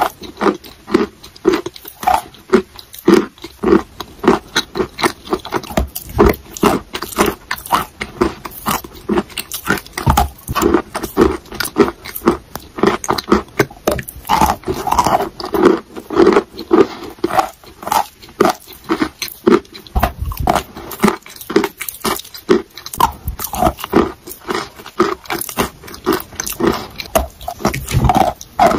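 Close-miked biting and chewing of a chunk of dry white chalk: an unbroken run of crisp crunches, several a second.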